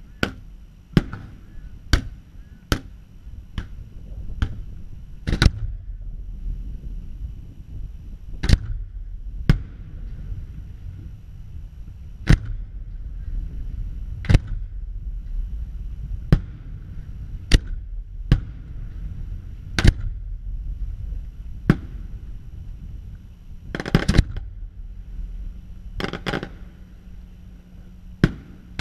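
Aerial fireworks shells going off: a string of sharp bangs about one every second or two over a steady low rumble, with a quick flurry of bangs near the end.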